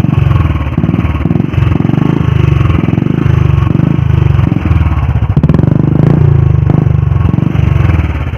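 Royal Enfield Classic 350's single-cylinder engine with an aftermarket Dolphin exhaust, revved up and down in repeated swells in neutral. The exhaust note is loud and fast-thumping.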